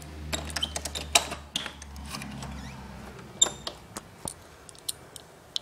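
A door's lock and handle being worked and the door swung open: a string of sharp clicks and knocks, thickest in the first two seconds and again at about three and a half seconds, over a low rumble that fades about halfway through.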